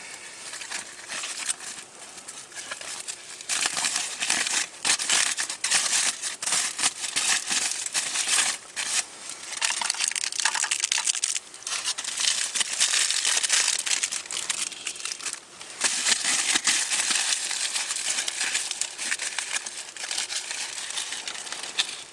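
Packaging crinkling and rustling as it is handled, in irregular bursts with brief pauses.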